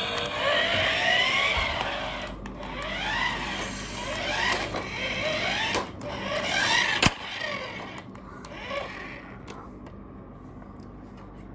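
Remote-control toy Bugatti car making a series of rising-and-falling engine-revving sounds that die away about eight or nine seconds in, with a sharp click about seven seconds in.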